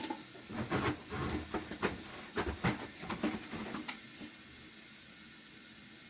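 Irregular clicks and knocks of objects being handled for about four seconds, then only a faint hiss.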